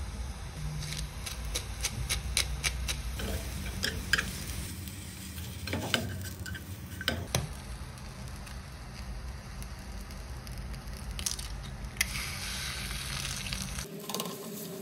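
Sliced mushrooms sizzling in a small nonstick frying pan, with a few sharp taps and clicks against the pan as an egg is cracked into it.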